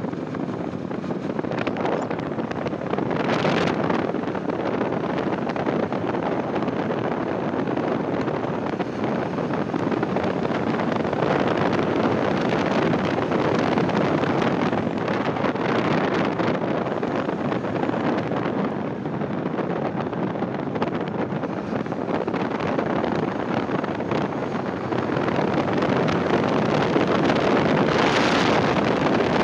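Wind rushing over a helmet-mounted microphone on a moving motorcycle, steady throughout, with a Bajaj Dominar 400's single-cylinder engine running underneath.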